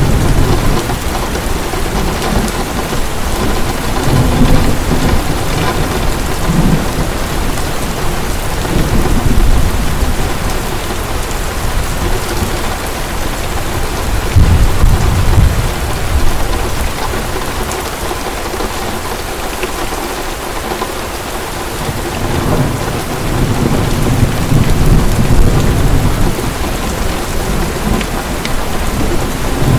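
Heavy rain falling steadily, with low rolling thunder that swells and fades about three times.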